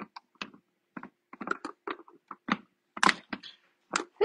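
Irregular hard plastic clicks and knocks as a cordless food processor's motor unit and lid are lined up and pressed into place on the bowl. The motor is not running.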